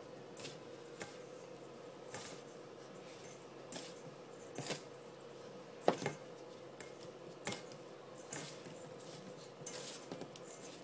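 Hands rubbing butter into flour in a glass mixing bowl: soft, irregular rustling and scraping, with a light click or knock every second or so, the loudest about six seconds in. A faint steady hum runs underneath.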